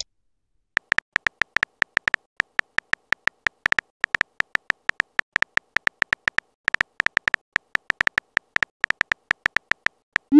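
Synthetic phone-keyboard tap sounds of a texting-story app: a rapid run of short electronic clicks, each with a high beep near 2 kHz, about three to four a second with a couple of brief pauses. A rising swoosh of a message being sent starts right at the end.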